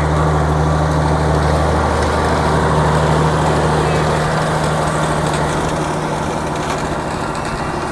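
An engine idling with a steady, even low drone that eases off a little in the second half.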